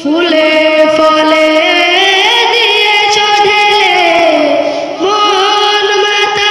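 A boy's solo voice singing a Bengali gazal through a microphone with no instruments: long held notes that climb, waver in quick ornaments in the middle, then fall, with a short breath about five seconds in before the next note.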